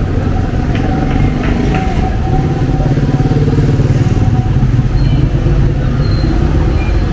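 Street traffic with a motor vehicle engine running close by, a steady low rumble.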